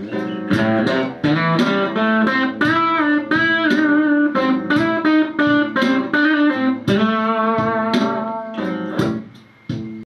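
Stratocaster-style electric guitar with single-coil pickups playing a blues phrase of single picked notes in the A minor pentatonic with the flat fifth added, with string bends and vibrato. It stops abruptly at the end.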